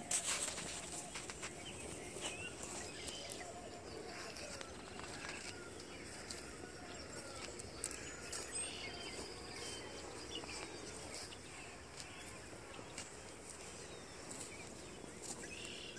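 Footsteps crunching over tilled soil and dry crop stubble, with birds chirping in the background.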